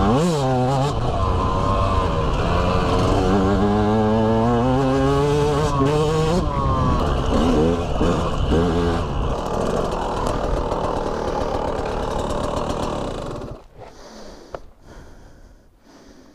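KTM 125 EXC two-stroke enduro motorcycle engine revving hard, its pitch rising and falling again and again through throttle and gear changes on a dirt trail. The engine sound drops away sharply about 13 seconds in as the bike comes to a stop.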